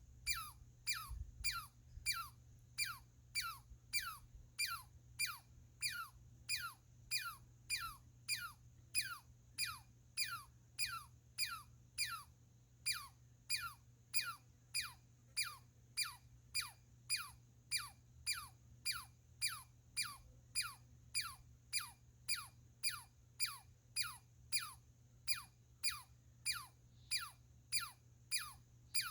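Squirrel calling over and over, a steady series of short, sharply falling chirps about three every two seconds, each like a Star Wars blaster "pew".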